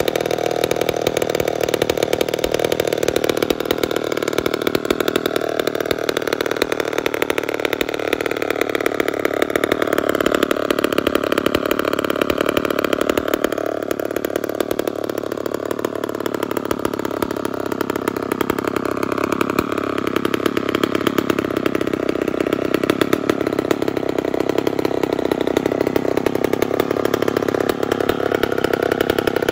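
Homelite 700G gear-drive chainsaw idling steadily, nothing being cut. Its single-cylinder two-stroke engine runs at an even speed throughout.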